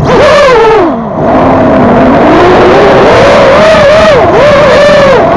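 FPV racing quadcopter's brushless motors and propellers whining loud and close, the pitch following the throttle: it drops low about a second in, then climbs back and wavers up and down.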